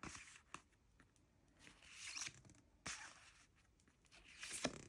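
Oracle cards being handled: faint swishes of cards sliding against each other as they are turned over, with a few light clicks as they are laid down.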